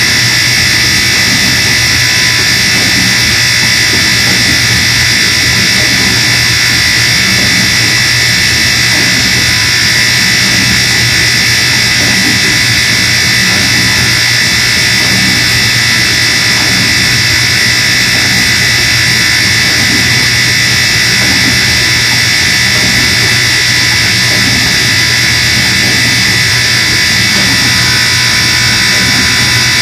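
Moffat dishwasher making a loud, steady buzzing noise, with a high whine over a low hum, unchanging throughout.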